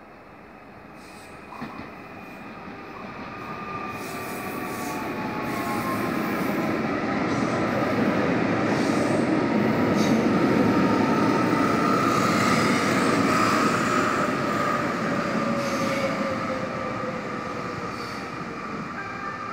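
Fertagus double-deck electric multiple unit (two coupled UQE 3500-series sets) arriving and running past along the platform as it slows: the rolling noise builds to a peak about ten seconds in and then eases. A high whine slowly falls in pitch through the passage.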